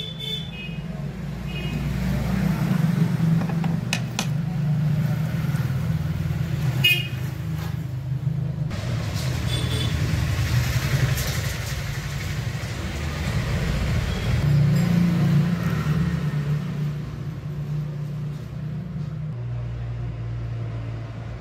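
Steady low mechanical rumble, with a few sharp clicks.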